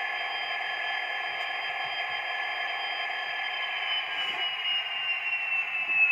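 Sound-fitted model Class 66 diesel locomotive playing its engine sound through a small onboard speaker: a steady hum and hiss with thin whistling tones, one of which slowly drops in pitch through the second half.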